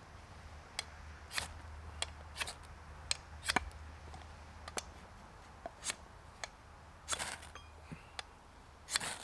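A ferro rod scraped again and again with the blade of a Condor Bushcraft Parang: about a dozen short rasping strikes at irregular spacing, loudest a little after three seconds in, each one throwing sparks.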